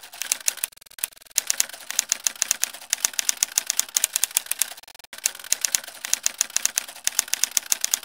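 Rapid typing: a quick run of sharp keystroke clicks, several a second, with a short pause about a second in and another near the middle.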